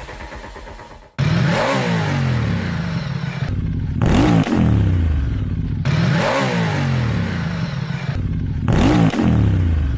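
Ducati Diavel 1260 S's V-twin engine blipped four times from idle, the revs climbing sharply and dropping back each time. The engine sound cuts in abruptly about a second in.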